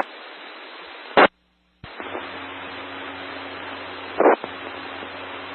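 FM two-way radio static: an even hiss from a ham radio receiver between transmissions, with no voice on the channel. It is broken by a short loud burst about a second in, which cuts to dead silence for half a second, and by another short burst near the four-second mark; a faint low hum sits under the hiss after the gap.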